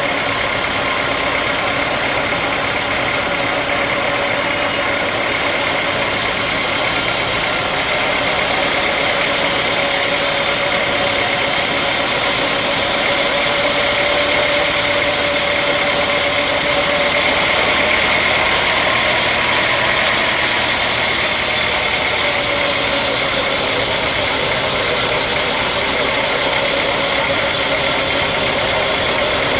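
Sawmill machinery running steadily, an engine-like drone with a held tone that wavers slightly.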